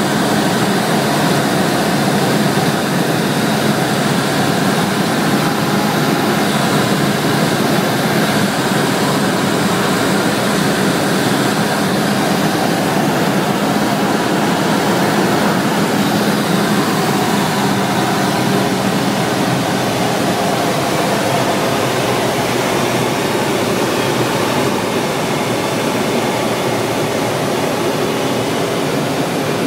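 A Cessna 172SP's four-cylinder Lycoming IO-360 engine and propeller running steadily in flight, heard from inside the cabin with airflow noise. The level dips slightly near the end.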